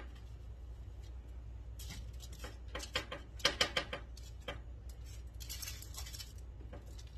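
Hands patting dry seasoning rub onto a rack of pork ribs on crinkly aluminum foil: a series of soft pats, taps and foil rustles, bunched in two spells and followed by a short rustle near the end.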